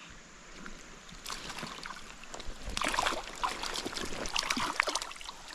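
Shallow stream water splashing and dripping as a caught trout is handled and released by hand: scattered small splashes start about a second in and grow busier past the middle.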